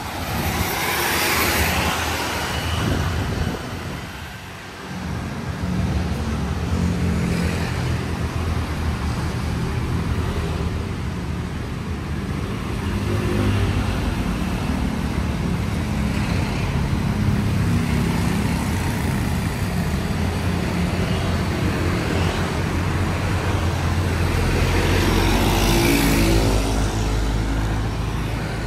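Road traffic: trucks and motorbikes running along the road, with a low engine hum under a steady noise of tyres and engines. A vehicle passes close near the start and another near the end.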